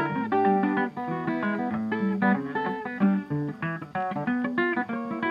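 Background music: plucked guitar playing a gentle melody of picked notes.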